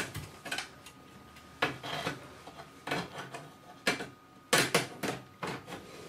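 Hard drive in its mounting bracket being slid into a metal drive bay of a Power Mac G4 tower: a string of sharp metallic clicks and knocks with short scrapes between them as it is pushed home and seats.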